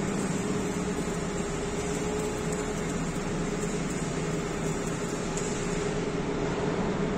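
Arc welding on a steel container-ship cell guide, a steady crackle over a constant mechanical hum.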